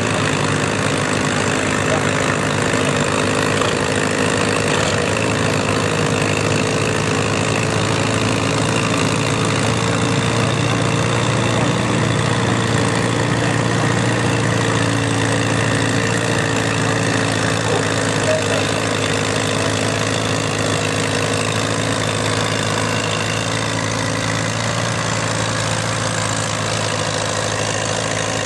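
Vintage Allis-Chalmers tractor engine running steadily under load as the tractor drags a weight-transfer sled, holding an even pitch throughout.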